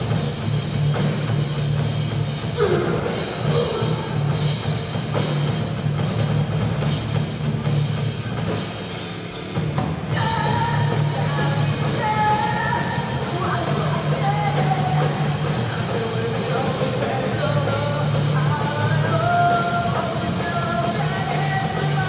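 Live rock band playing loudly: drum kit, electric guitars, bass and a singer. The dense drumming and cymbals in the first half drop back briefly just before halfway, and then a melodic line carries over the steady bass.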